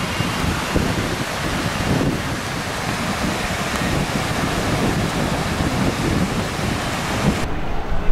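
Ocean surf washing on a beach with wind buffeting the microphone in low, uneven gusts. Near the end the hiss of the surf cuts off suddenly, leaving only the low wind rumble.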